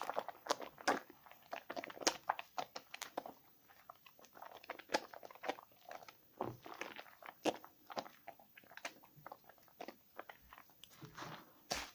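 A bar of Nevskaya Kosmetika "Karmen" soap being lathered in wet hands, with irregular squishing and a steady run of small crackles.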